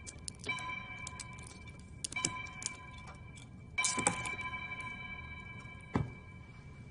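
Metal handcuff and its chain clinking and jangling as the cuff is unlocked, in four bunches of clicks each followed by a ringing metallic tone. A single dull thump comes about six seconds in.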